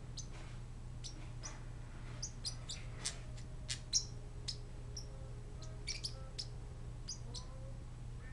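Pet parrotlets chirping: about twenty short, high chirps in an irregular series, the loudest about four seconds in, over a low steady hum.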